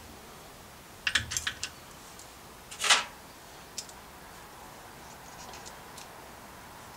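A quick run of light clicks about a second in, a sharper clack near three seconds, then a few faint ticks: small tools and metal parts being handled at a metal lathe.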